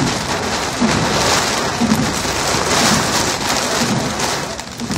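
Heavy rain beating on a car's windshield and roof, heard from inside the car as a dense, steady hiss that eases briefly near the end.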